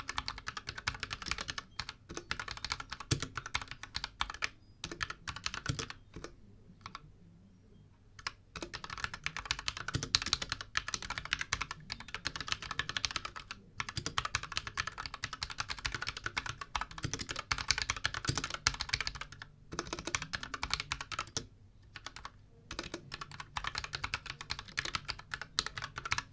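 Steady typing on a Royal Kludge RK61 mechanical keyboard fitted with AKKO Matcha Green switches and XDA profile keycaps: a dense run of key clacks, broken by a pause of about two seconds a quarter of the way in and a couple of short breaks later.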